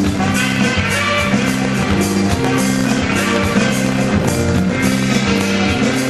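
Music with a steady beat and held notes that change pitch every half second or so.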